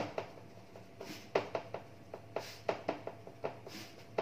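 Fingers patting a ball of bajra (pearl millet) dough flat on a flour-dusted stainless steel plate to shape a bhakri: about ten short, uneven pats.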